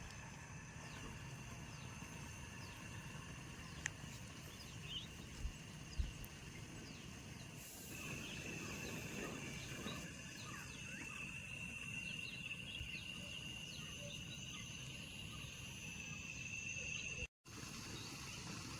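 Insects, crickets or cicadas, trilling steadily in the forest, the high trill growing louder about eight seconds in, with a few small clicks early on.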